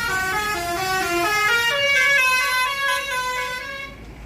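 Indonesian 'telolet' multi-tone bus horn playing a quick melody of short stepping horn notes, then one long held note that fades out near the end.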